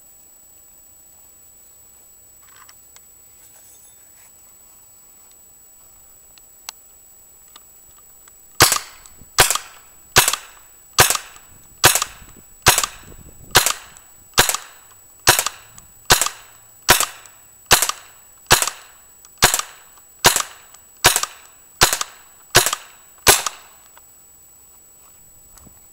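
RAP4 Gen4 paintball marker, fed by a remote air line, firing a steady string of about nineteen shots, a little faster than one a second, after a quiet start.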